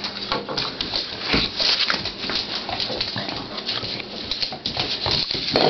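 Pit bull puppies play-fighting: an irregular scuffle of paws and claws on a tiled floor, with brief puppy yips and whines and a short rising whine near the end.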